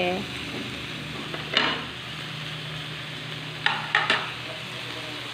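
Pork belly and bacon sizzling on a round samgyeopsal grill pan over a portable gas stove: a steady frying hiss. A few short knocks of chopsticks against the pan come about one and a half seconds in and twice around four seconds.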